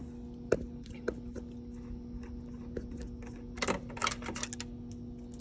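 Scattered small clicks and ticks of a Phillips screwdriver and screws being worked out of a copier's plastic cover, with a quick cluster of them about three and a half seconds in, over a steady low hum.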